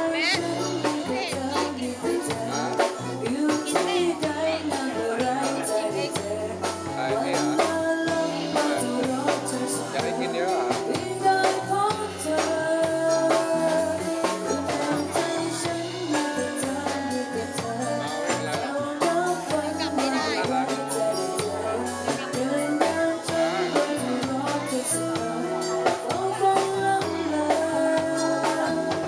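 Live pop band playing: a woman singing into a microphone over acoustic guitar, keyboard and drum kit, with a stepping bass line underneath.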